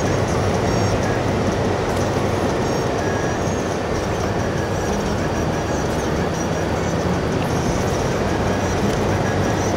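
Steady road noise heard inside a moving car's cabin: tyres rolling on asphalt at highway speed with a low engine drone.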